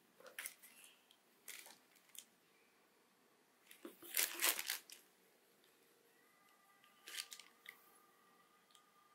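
Hands handling a sneaker over its box: a few faint scuffs and rustles, the loudest cluster about four seconds in, and another near seven seconds.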